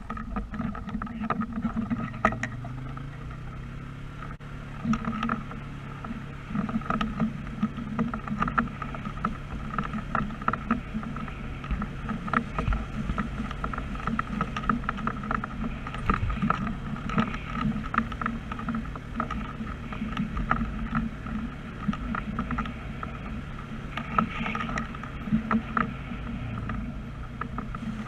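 Fire truck engine running steadily, heard from inside the cab while under way, with scattered short rattles and knocks.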